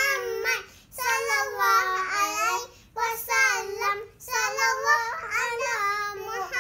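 Young children singing a selawat (devotional praise of the Prophet Muhammad) without instruments, in short sung lines with brief breaths between them.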